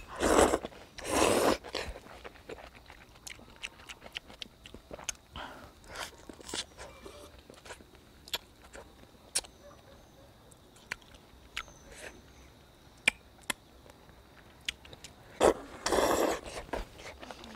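Sweet potato noodles being slurped up loudly, twice in the first two seconds and again near the end, with chewing and small wet clicks from the mouth in between.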